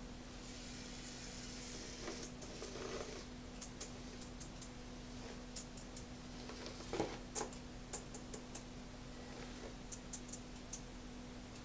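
Light, irregular clicks and taps of a Yokomo nanoQLO micro rock crawler's wheels and plastic chassis on a recycled-paper nanoRock plate as it crawls over the bumps. There is a louder knock about seven seconds in, over a faint steady hum.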